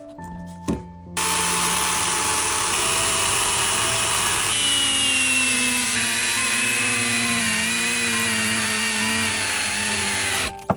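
Electric power tool running steadily through wood, starting about a second in after a single click and stopping just before the end.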